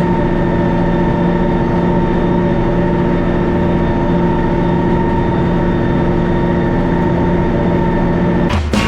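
Valmet 1280 tractor's diesel engine running steadily at a constant, even pitch while pulling a planter. Near the end it cuts off abruptly and music comes in.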